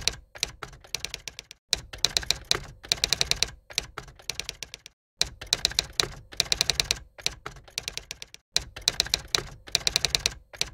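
Typewriter sound effect: rapid key strikes clacking in runs of about a second, with short pauses between runs, as text is typed out.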